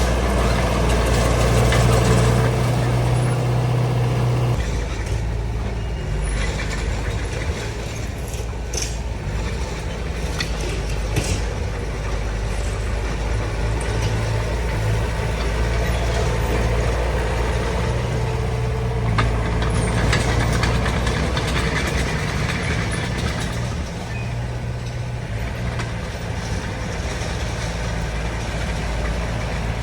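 Diesel engine of a D20 crawler bulldozer running steadily while it works, its note easing about four seconds in and strengthening again in the second half as the load changes. A few sharp clanks come through around the middle.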